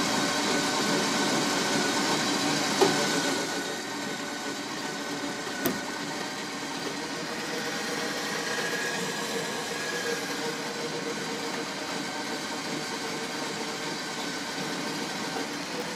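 Harbor Freight electric winch running steadily under load, reeling in its cable and dragging a log, with two sharp clicks about three and six seconds in.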